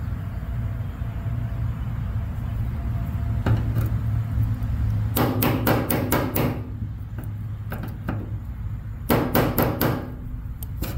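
Two quick runs of hand-struck knocks on metal car parts, six or seven rapid strikes about five seconds in and four more about nine seconds in, like something being beaten loose without a hammer. A steady low hum runs underneath.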